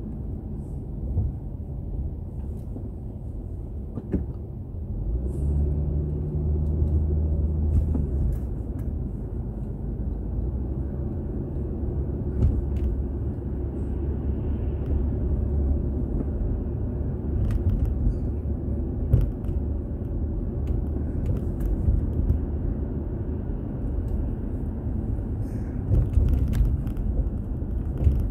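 Car driving, heard from inside the cabin: a steady low rumble of engine and road noise, with a few light knocks scattered through it.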